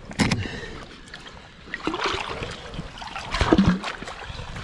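Shallow rock-pool water splashing and sloshing as hands rummage through it, with a few sharper knocks and splashes near the start and again a little past the middle.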